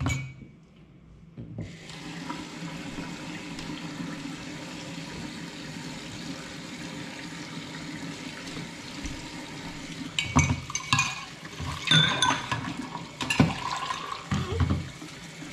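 Kitchen sink tap turned on about one and a half seconds in, water running steadily into the sink, with a few knocks and clatters in the later seconds.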